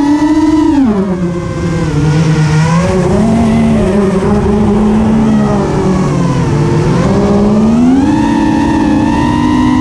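Onboard sound of a radio-controlled model plane's motor and propeller: a steady whine that drops in pitch about a second in as the throttle is eased off, stays low through the middle, and climbs back up about eight seconds in as power is added again. A low rush of air runs underneath.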